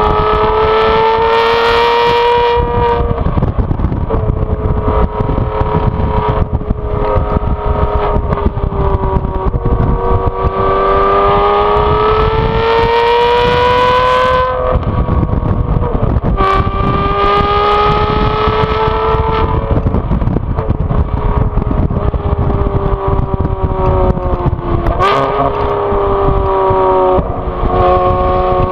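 Exhaust note of an Aston Martin V12 Vantage S's V12, tuned with a power-upgrade kit, driven hard: the engine pitch climbs slowly under acceleration and drops back several times as the driver lifts off or shifts, with a couple of sharp cracks as the revs fall.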